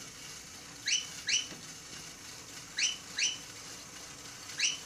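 LEGO WeDo drumming monkey model running: short whistle-like chirps come in pairs, one pair about every two seconds, three pairs in all, over a faint steady noise.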